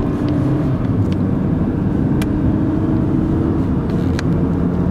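Fire engine's engine running steadily, the sound mostly low-pitched, with two brief sharp clicks about two and about four seconds in.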